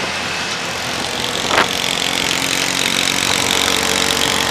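Tuk-tuk's small engine running steadily as it drives through traffic, heard from the open passenger cab, with one short sharp knock about a second and a half in.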